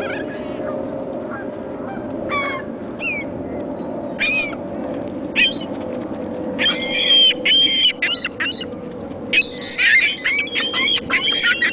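A flock of hungry birds calling while waiting to be fed: short, harsh, pitched calls, a few at a time at first, then coming thick and overlapping in the second half. A steady low hum runs underneath.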